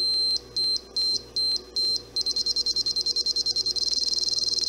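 Small electronic beeper on a homemade channel-stepping circuit for a Stryker 955 radio, giving one short high beep per channel step down in frequency. The beeps start slow and speed up from about two seconds in until they nearly run together, showing the knob being turned further from its centre detent.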